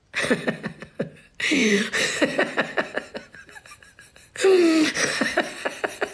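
A woman laughing in three long bouts, each a run of quick, breathy pulses.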